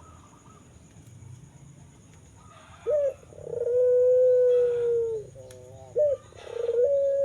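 Two long, drawn-out animal calls at a steady mid pitch, each held about a second and a half and easing slightly downward, each led by a short rising yelp; the first comes about three seconds in and the second about three seconds later.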